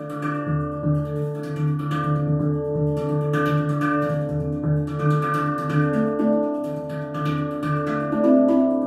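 Soma handpan in a Phrygian hexatonic tuning, played with the fingers: a steady stream of struck notes that ring on and overlap, with quick light taps between the main strokes.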